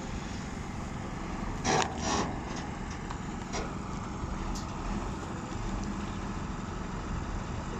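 Heavy dump truck's diesel engine running steadily at low speed as the truck manoeuvres, with two short sharp knocks close together about two seconds in.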